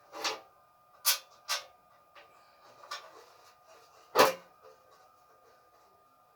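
Stove parts and tools being handled during reassembly of a gas stove: a handful of sharp knocks and clicks, the loudest about four seconds in.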